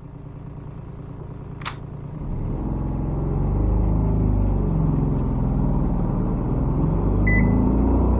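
Turbocharged 719 cc diesel engine heard from inside the car, idling and then pulling under full throttle as the car launches from a standstill in first gear, getting louder from about two seconds in. A short electronic beep sounds near the end.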